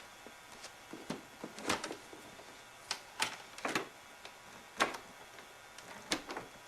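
A series of sharp hard-plastic clicks and knocks, about seven spread unevenly, from the upright vacuum's parts being handled. The motor is not running.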